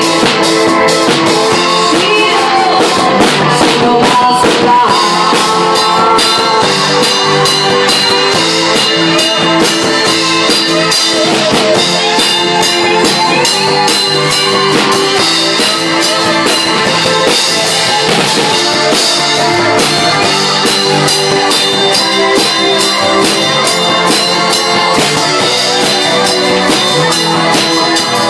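Live band rehearsal: electronic keyboard, electric guitar and a drum kit playing a rock-style song together, loud and steady, with a regular drum beat.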